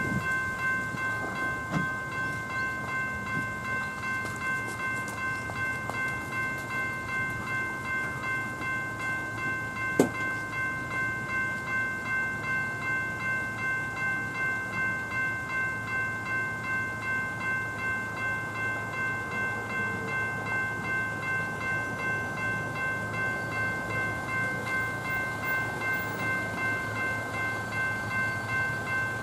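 Electronic level-crossing bells (General Signals E-Bells) ringing in a steady, even rhythm, a little over two strokes a second, the crossing's warning that a train is coming. One sharp click about ten seconds in.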